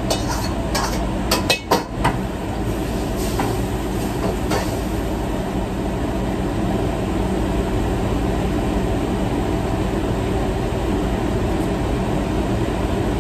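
Commercial kitchen wok range and exhaust hood running with a steady rumble. A few sharp metal clinks and knocks of a steel wok and utensils come in the first two seconds.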